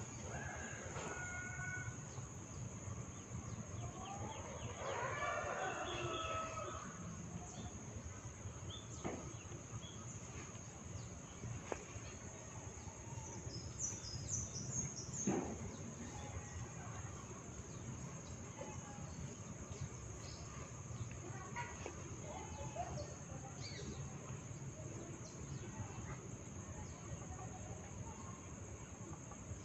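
A few sharp cracks from tufts of hair being pulled and twisted in a hair-cracking head massage, the loudest about fifteen seconds in. A rooster crows in the background about five seconds in, over a steady high-pitched whine.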